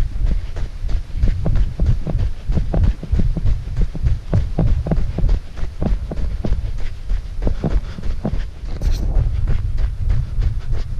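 Running footsteps on packed snow, about three strides a second, each footfall a short crunching thump, over a steady low rumble from the body-worn camera moving.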